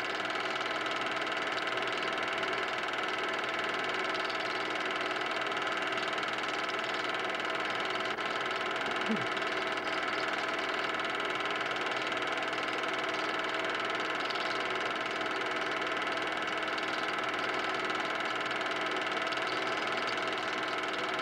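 Steady mechanical whirr of a Super 8 film projector running, unchanged throughout, with a brief falling tone about nine seconds in.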